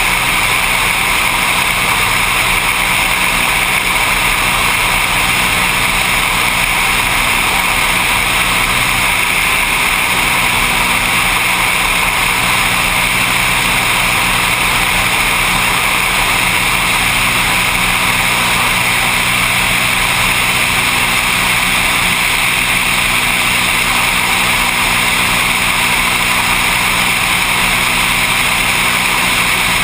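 Seaplane engine and propeller droning steadily, mixed with rushing wind noise.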